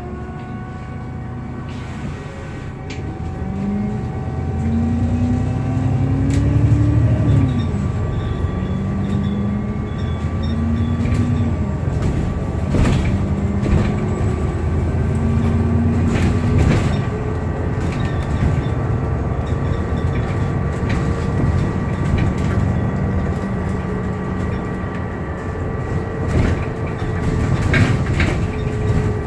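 Alexander Dennis Enviro 400MMC double-decker bus accelerating: the engine and gearbox rise in pitch three times as it changes up through the gears, then settle to a steady drone. A steady high whirring whine runs through it, the strange whirring noise this bus is known for, with scattered clicks and rattles.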